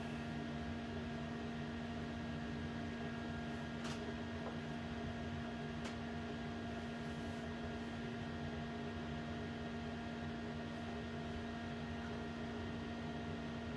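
Steady electrical hum with a constant low tone over a faint hiss, and two faint clicks about four and six seconds in.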